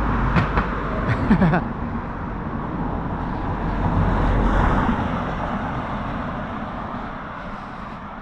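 A car passing on the road, its tyre and engine noise rising to a peak about four to five seconds in and then fading away.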